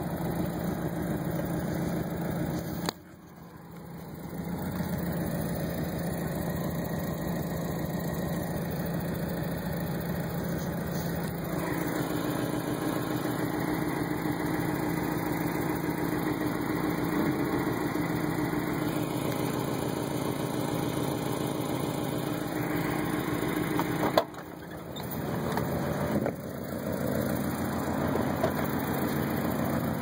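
1990 Mazda Miata's 1.6-litre four-cylinder engine idling steadily just under 1000 rpm. The owner calls it a rough idle with the whole car rocking, and wonders whether it is a crankshaft problem. A single sharp knock comes about 24 seconds in.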